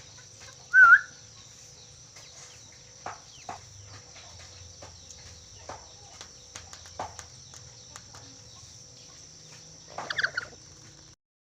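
Black-capped lory whistling: one short, loud, wavering whistle about a second in, then scattered faint clicks, and a brief cluster of sharper calls near the end.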